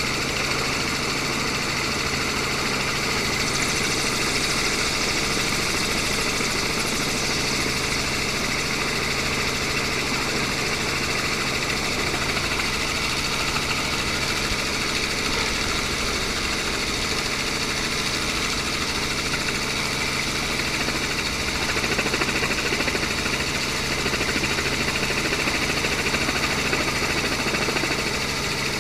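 Steady engine noise: a constant hum with a layer of hiss over it, growing a little louder for a few seconds about three-quarters of the way through.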